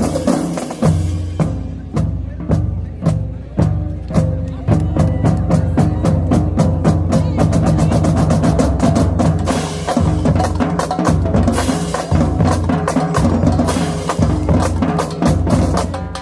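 Marching drumline playing a fast, loud cadence: rapid snare drum strokes and rolls over pitched marching bass drums.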